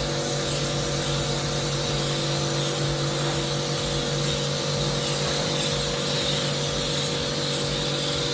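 Electric spray pump running steadily with a constant hum and the hiss of spraying liquid.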